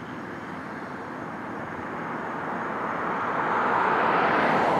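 A passing vehicle, its noise swelling steadily and loudest near the end.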